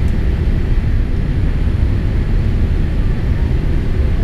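Steady, loud low rumble of a Boeing 787-8 heard inside the cabin at a window seat beside its GE GEnx engine during final approach: engine noise and rushing air over the fuselage.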